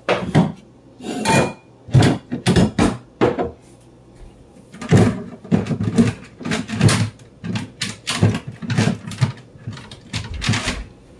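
Irregular knocks and clatters of things being handled on a kitchen counter, coming in quick clusters throughout.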